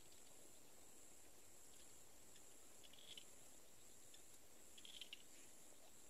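Near silence: faint outdoor ambience with a steady high insect-like hiss, and a few faint short chirps about three seconds in and again near five seconds.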